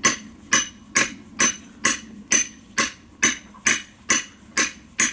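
Husqvarna forged-steel stump vise being driven into a log by blows from a metal striking tool on its head: twelve evenly spaced metal-on-metal clanks, about two a second, each with a short bright ring.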